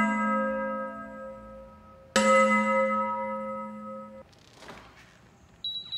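Bell-like chime notes ringing and fading: one note dies away at the start, a second is struck about two seconds in and rings for about two seconds. Near the end a few faint knocks are followed by a short, high, steady beep.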